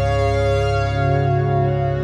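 Background music: slow, sustained organ-like keyboard chords.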